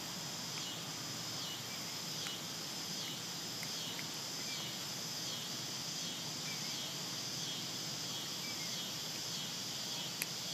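Steady outdoor insect chorus: a continuous high-pitched drone with a faint pulse repeating about once a second. A few light clicks, two of them near the end.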